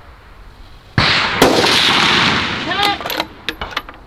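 A centerfire precision rifle fires once about a second in: a loud crack with a long echo trailing off over about two seconds. A second sharp crack comes about half a second after the shot, and a few light clicks follow near the end.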